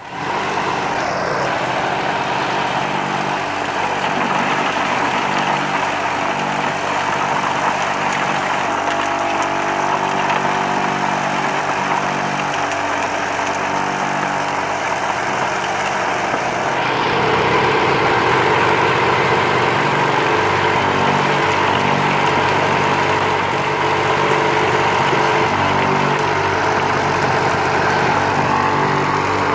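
Electric vibrating motor on a homemade compost sifter running steadily, shaking the wire-mesh screen in its wooden frame with a constant hum. The tone of the hum shifts a little about halfway through.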